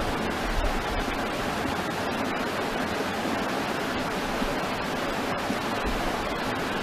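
Steady rushing noise from strong wind, with a low, uneven rumble of gusts buffeting the microphone.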